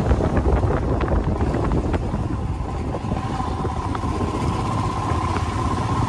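Motorcycle being ridden along a road, heard from the rider's position: the engine running under a dense, steady rumble of riding noise. A faint steady whine comes in about three seconds in.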